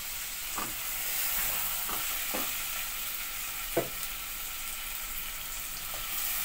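Chicken pieces and fried onions sizzling in hot oil in a metal pot: a steady frying hiss with a few short knocks from stirring, the sharpest a little past halfway.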